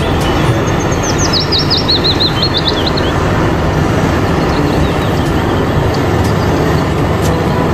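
Steady outdoor background noise with a low rumble, and a bird chirping a quick series of falling notes for about two seconds, starting about a second in.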